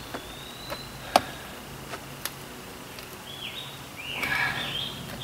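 A screwdriver prying and scraping at a camper's window frame to work loose the sticky sealant, giving a few sharp clicks and taps, the loudest about a second in. A brief higher squeaking scrape follows about three to four seconds in.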